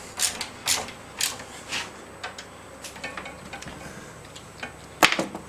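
Hand-tightened clamp of an HDMI cable test rig clicking as it is wound tight: a series of sharp clicks about two a second, fainter after the first couple of seconds, then one louder click near the end.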